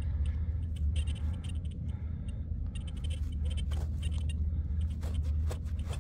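Steady low rumble of wind on the microphone, with light scraping and a scatter of small clicks as dirt is rubbed off a small metal token held in the hand.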